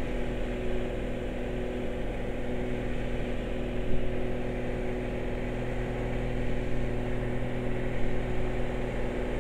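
Piper Saratoga's six-cylinder piston engine and propeller droning steadily at climb power, heard inside the cabin as an even hum with several constant tones. A brief knock about four seconds in.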